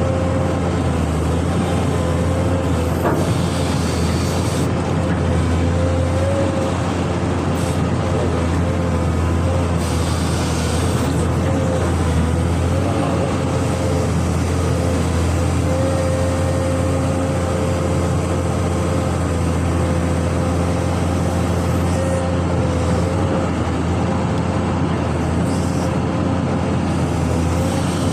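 Amphibious excavator's diesel engine running steadily, with a held whine over it that wavers slightly in pitch.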